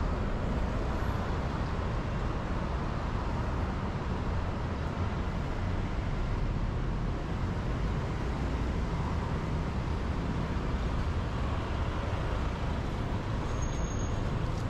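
Steady city street traffic noise, a continuous low rumble of passing cars and engines.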